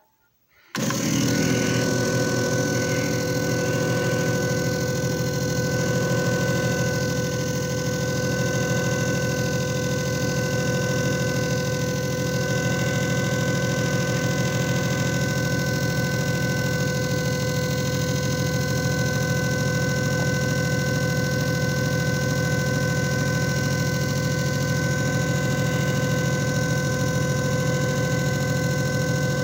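JFJ Easy Pro disc repair machine switching on about a second in and running a two-minute repair cycle: its motor spins steadily with a constant whine over a low hum.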